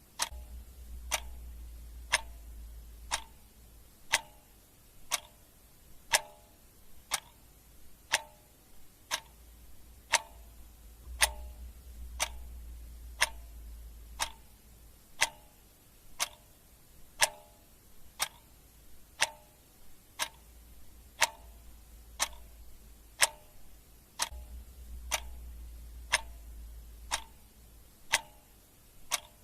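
Clock ticking steadily, about two ticks a second, alternating a louder and a softer tick-tock. A faint low rumble comes and goes underneath.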